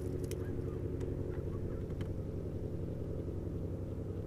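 Steady low drone of a boat motor running, a stack of low tones with a fast pulsing beat; some of its higher tones drop away about a second in.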